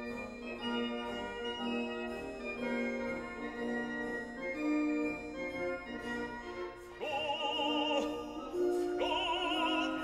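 Background music: held organ-like keyboard chords, joined about seven seconds in by an operatic voice singing with a wide vibrato.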